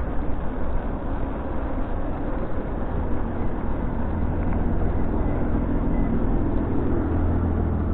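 Steady rush of wind on the microphone and a low rumble of wheels on pavement while riding, with car traffic running alongside.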